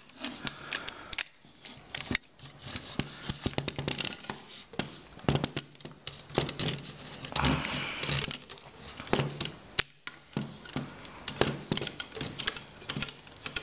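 Hands handling a small travel tripod: irregular clicks and knocks of its metal legs and plastic fittings as it is unfolded and set up on a wooden table, with a longer rustling scrape about seven and a half seconds in.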